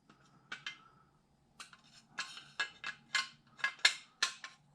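Small hard parts of an airsoft rifle clicking and clinking as a part is fitted back onto it: two light clicks, then a quicker, irregular run of sharp clicks from about a second and a half in.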